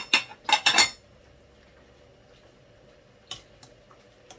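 Metal cookware clanking against a stainless-steel cooking pot: a quick cluster of sharp, ringing clanks in the first second, then a couple of light knocks about three and four seconds in, over a faint steady hum.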